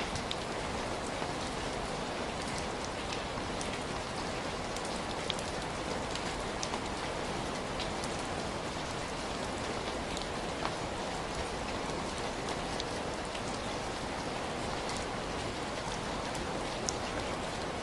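Heavy rain falling steadily, a dense even hiss with scattered sharp drop ticks.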